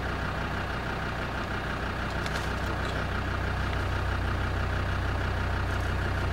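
Land Rover Defender 110 engine idling with a steady low drone, heard from inside the cab.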